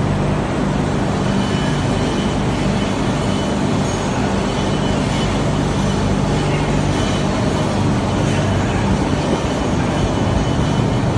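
Sublimation paper coating machine running: a loud, steady mechanical drone with a constant low hum underneath.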